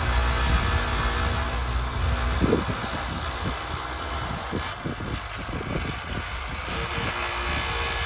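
New Holland TT75 tractor's diesel engine running under load as it pulls a three-disc plough through dry ground, a steady low drone. From about two and a half seconds in, uneven low thumps join it.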